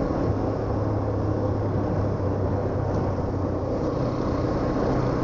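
Motorcycle engine running steadily while riding, a low even hum with rushing road and wind noise.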